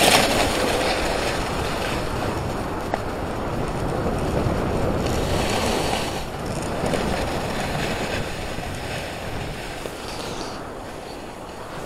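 Snowboard sliding over snow, with wind rushing over the microphone: a steady rough hiss that slowly eases off toward the end.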